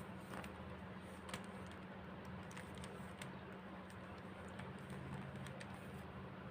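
Faint, scattered clicks of a plastic 3x3 Rubik's cube being handled and turned, over a steady low hum.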